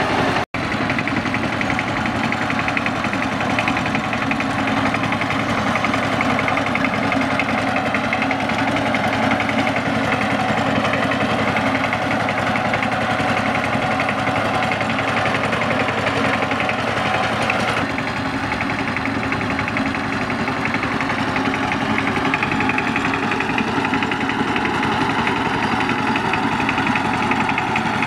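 Two-wheel power tiller's single-cylinder diesel engine running steadily while pulling a trailer loaded with paddy straw. The sound drops out for an instant less than a second in, and the engine's tone shifts about two thirds of the way through.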